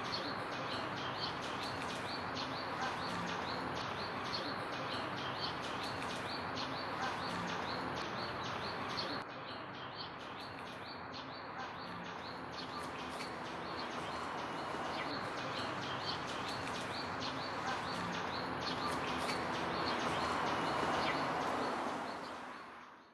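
Outdoor ambience of many small birds chirping over a steady background hiss. The background drops a little in level about nine seconds in and the whole fades out near the end.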